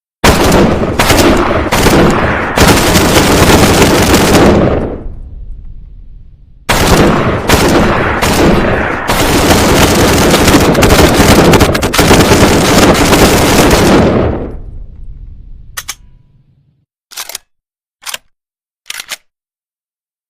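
PPSh-41 submachine gun firing long fully automatic bursts in rapid fire: one burst of about four seconds with brief breaks, then a longer one of about seven seconds, each ringing out as it fades. Four short sharp cracks follow near the end.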